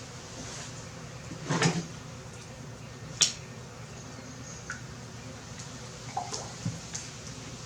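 Light knocks and clicks of oil containers and a funnel being handled while motor oil is poured into a motorcycle engine, with one sharp click about three seconds in, over a steady hiss.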